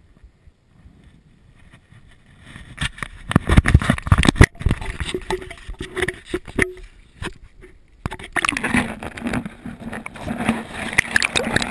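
Quiet at first, then from about two and a half seconds in a run of heavy knocks and rubbing against the camera. From about eight seconds in, water sloshing and churning over the submerged camera as a caught largemouth bass is let back into the water.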